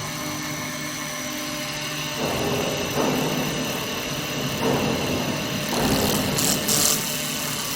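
CNC wood lathe running with a steady motor hum; from about two seconds in, the cutters bite into the spinning wood in several rough, uneven bursts, making test tool marks.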